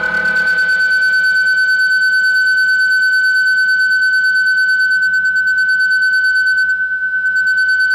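Music: a single loud, high, steady tone held as a drone with fainter overtones, the highest of which flicker on and off near the end.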